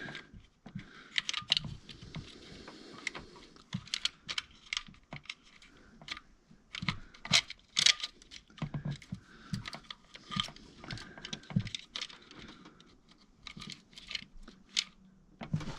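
Irregular clinks and light rattles of metal on metal as a timing chain and its guides are worked into place by hand on a 2.4-litre four-cylinder engine, with a louder cluster about halfway through.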